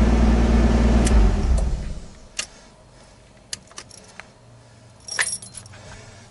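Nissan Skyline R32 GTS-T's RB25DET engine running, then switched off about a second and a half in, its sound dying away. After it come scattered clicks and keys jangling at the ignition, loudest about five seconds in.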